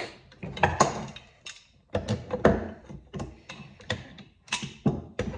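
Irregular metal clicks and taps as a crimp-on center swivel is crimped down onto the base of a steel foothold trap with vise grips.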